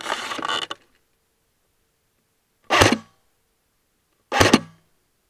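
Airsoft rifle firing single shots at a target: two short, sharp shots about one and a half seconds apart in the second half. A brief noisy clatter comes right at the start.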